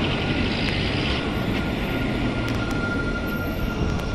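Electric low-floor tram passing at close range: a steady rumble of steel wheels on rail with a thin, steady whine over it from its electric drive.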